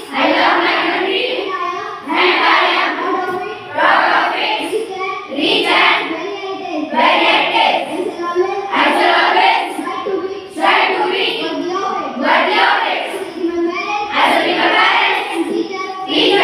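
A class of schoolchildren reciting together in unison, phrase after phrase with short breaks between.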